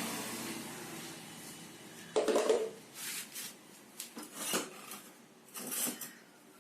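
Metal parts and tools being handled while a motorcycle front fork is dismantled: a loud metallic clank about two seconds in, then lighter clinks and scraping rubs. A steady hum fades out over the first two seconds.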